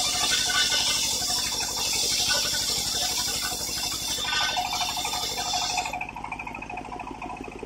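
Circular sawmill blade ripping lengthwise through a teak beam with a loud, steady hissing whine. About six seconds in the blade clears the end of the cut and the whine drops away, leaving the machine running free with a steady low pulsing.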